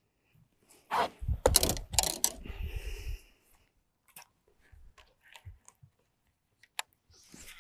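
Handling noise from a fishing rod and baitcasting reel held close to the microphone: a cluster of knocks and low rumbling bumps for about two seconds, then scattered small clicks.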